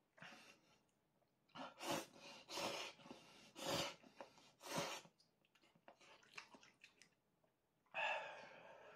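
Instant ramen noodles slurped from chopsticks in five short, noisy pulls over the first five seconds, then quieter chewing with small clicks of wooden chopsticks against the pot. A louder breathy rush comes about eight seconds in.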